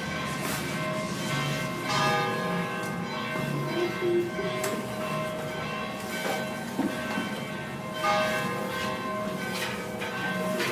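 Church bells ringing, several bells struck in turn, their tones ringing on and overlapping.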